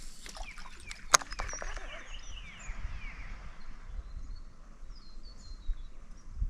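Birds calling over a quiet river: a run of descending whistled notes, then faint high chirps, over a low steady rumble. A single sharp click sounds about a second in.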